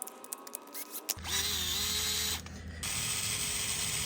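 A small mechanism or tool works in two steady stretches, the first about a second long and the second about two seconds long. A few light clicks come before them.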